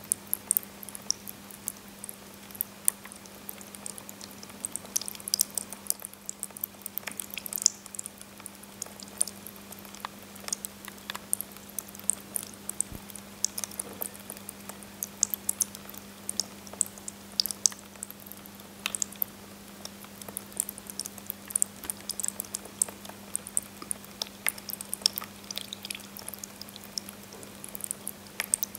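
Two thin water jets of a small tabletop fountain falling in drops onto pebbles in the basin: a constant irregular patter of small drips and splashes. Underneath runs the steady low hum of the fountain's electric pump.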